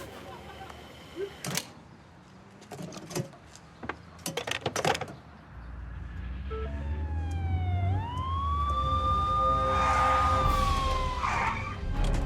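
Several sharp clicks and knocks, then a low engine rumble with a siren wailing over it. The tone glides down, sweeps up and holds steady for a few seconds, then falls away near the end.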